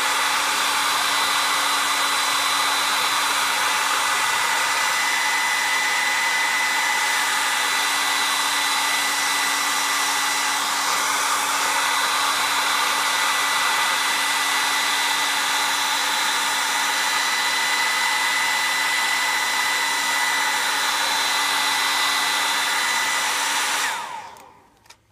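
Conair Cord Keeper handheld hair dryer running steadily, a rush of air with a steady high whine, heating foil-wrapped dyed hair. Near the end it is switched off and the sound dies away within about a second.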